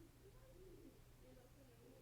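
Faint, muffled voices of other people talking in the background, over a low steady hum.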